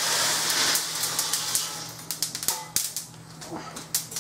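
Freshly roasted coffee beans pour out of the roaster onto a wire-mesh cooling screen in a rushing rattle. About two seconds in, the pour ends and scattered sharp snaps follow as the hot beans keep cracking in second crack: they are still cooking.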